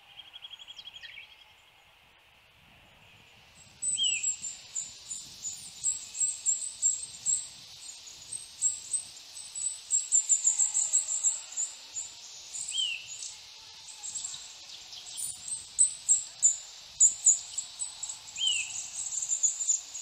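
Eurasian nuthatch singing: a fast trill of whistled notes for about the first second, then single downslurred whistles several seconds apart. From about four seconds in, a dense run of very high-pitched rapid chirps carries on and is the loudest sound.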